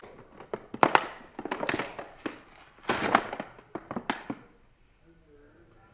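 Plastic toy packaging crackling and crinkling in quick sharp bursts as it is pulled and torn open by hand, stopping about four and a half seconds in.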